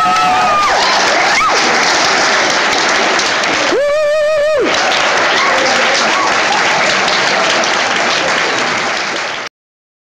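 Audience applauding after a dance, with one long, wavering cheering call about four seconds in; the applause cuts off suddenly near the end.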